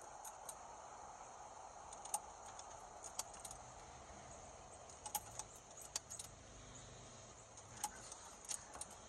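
Ignition keys jingling in scattered light clicks over a faint steady hum in the truck cab.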